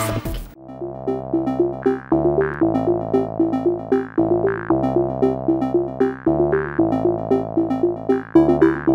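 Background music: an electronic synthesizer tune with a quick repeating riff over a bass line that changes every couple of seconds. It takes over about half a second in, after a louder, denser music passage ends.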